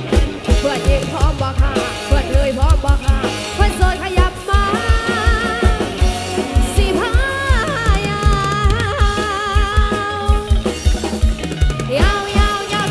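Live Thai dance music played loud through a rot hae sound truck's speaker system: an electronic keyboard lead with bending, sliding notes over a fast, steady bass-drum beat.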